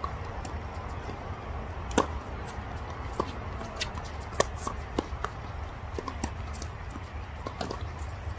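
Tennis ball being hit and bouncing in play: sharp knocks, the loudest about two seconds in and others roughly a second apart, with smaller clicks between, over a steady low rumble.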